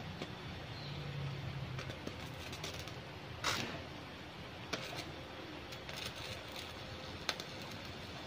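Electric arc welding at a concrete pile-press rig: irregular clicks and crackles over a low steady machine hum, with one short loud hiss about three and a half seconds in.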